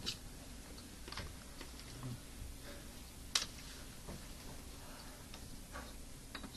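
Scattered light clicks and taps from handling at the microscope and computer while the next glass slide is brought up, with one sharper click about halfway through.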